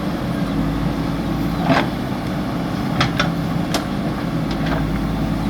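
JCB backhoe loader's diesel engine running steadily, with about six short knocks or clanks from the machine's work.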